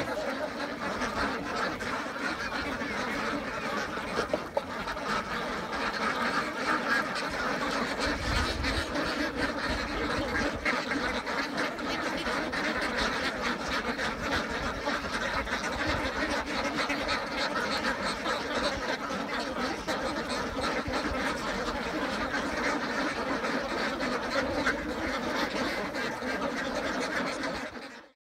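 A large flock of domestic ducks quacking together in a dense, unbroken chorus, cutting off suddenly near the end.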